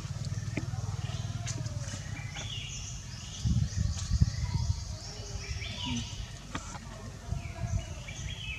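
Short, high chirping animal calls over a steady low rumble, with a few louder low thumps about three and a half to four seconds in.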